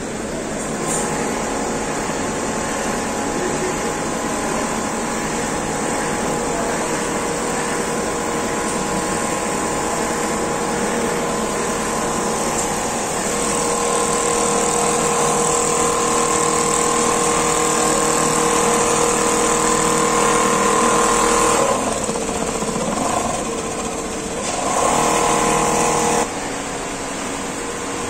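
Computerized single-needle quilting machine running while it stitches a comforter: a steady mechanical whir with a constant whine over a hiss. The whine wavers in pitch for a few seconds near the end, then the sound drops in level.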